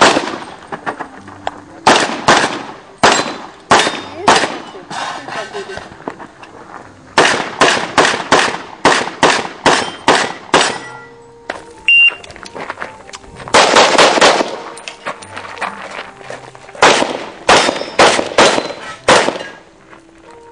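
Handgun shots fired in rapid pairs and longer strings, in about five bursts separated by short pauses.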